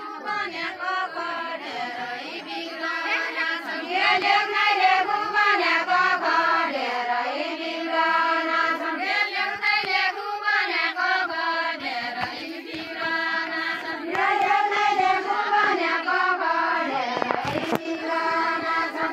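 A group of women singing a Deuda folk song together without instruments, in long, drawn-out lines with held, wavering notes. A brief knock is heard near the end.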